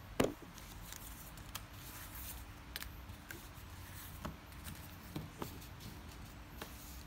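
Paper leaflets and card stickers being handled on plastic carrier bags: scattered light clicks, taps and rustles, with one sharper knock just after the start.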